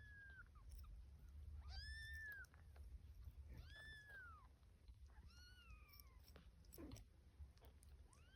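Kitten meowing: a string of short, high-pitched meows, each rising and then falling in pitch, about one every two seconds.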